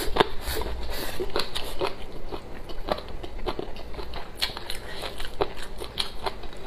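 A person chewing a mouthful of rice and kelp salad close to the microphone, with many irregular crisp crunches and mouth clicks.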